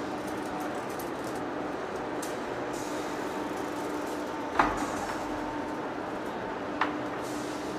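Giant lathe running with a steady machine hum and a faint steady tone, broken by two sharp metallic clanks: a louder one a little past halfway and a weaker one about two seconds later.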